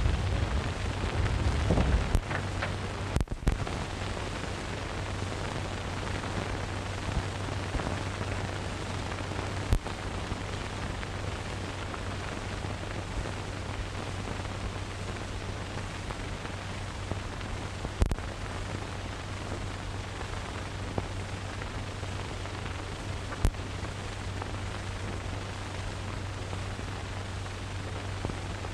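Steady hiss and low hum of an old optical film soundtrack, with a few sharp clicks and pops scattered through it. A louder low rumble sits under the hiss for the first couple of seconds.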